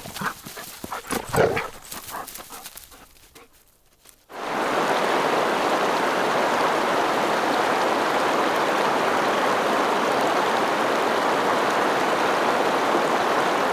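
Scattered clicks and rustles, fading away, then, about four seconds in, a steady rushing of running water that starts abruptly and holds even.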